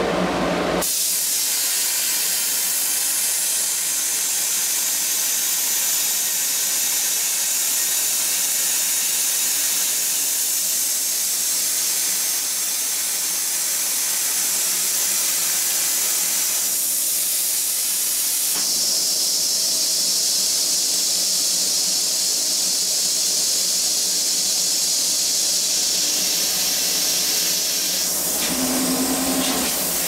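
CNC plasma torch cutting 1-inch-thick steel plate: the arc's steady hiss starts suddenly about a second in, turns sharper and higher-pitched about two-thirds of the way through, and stops shortly before the end.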